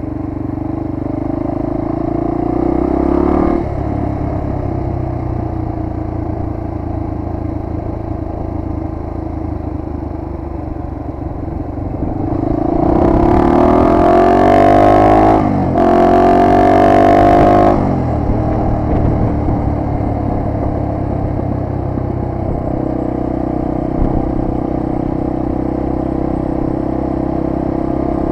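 1998 Honda XR250R's single-cylinder four-stroke engine running as the bike rides along. About halfway through the revs climb, break off briefly and climb again, then settle back to a steady run.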